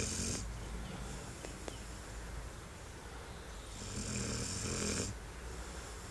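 Six-month-old Labrador puppy snoring in its sleep. There are two slow, rasping breaths: one tails off just after the start, and a longer one comes about four seconds in.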